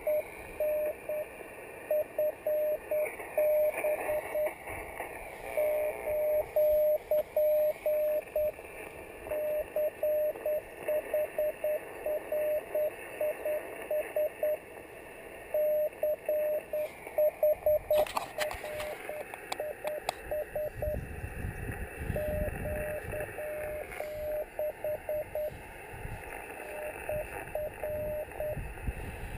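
Morse code (CW) from a Yaesu FT-817ND HF transceiver: a single steady tone keyed on and off in dots and dashes over receiver hiss. A sharp click comes about two-thirds of the way through, followed by a few seconds of low rumble.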